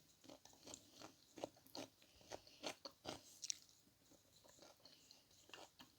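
Faint close-up chewing: soft, irregular mouth clicks and small crunches, a few each second.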